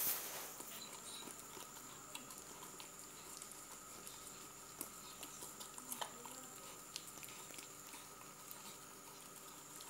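Labrador puppy eating soft khichdi from a stainless steel bowl: faint eating sounds with a few small clicks now and then, over a faint steady high hum.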